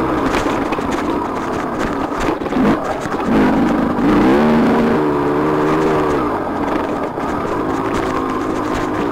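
TM 300 two-stroke dirt bike engine running hard under throttle while riding, its pitch climbing about three and a half seconds in, holding, then dropping back near six seconds, with knocks from the bike over rough ground.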